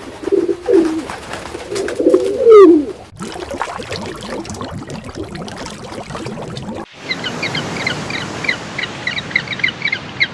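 A few low, gliding animal calls in the first three seconds, the loudest about two and a half seconds in. From about seven seconds in comes a quick run of short, high bird chirps, several a second.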